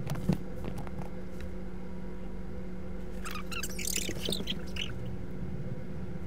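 Steady low electrical hum of a room, with a sharp knock just after the start. About three seconds in comes a run of high squeaks and chirps that lasts a second or two.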